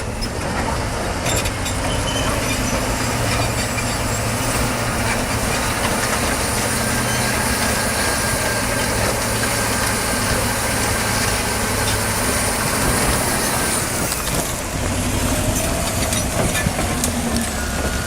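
Large bulldozer's diesel engine running steadily under heavy load while it pushes a big rock, with mechanical rumble and grinding noise over the engine.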